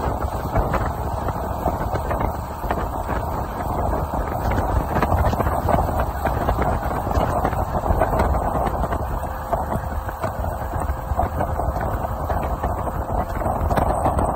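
A small motorboat running steadily under way, its engine noise mixed with the rush of wind and water.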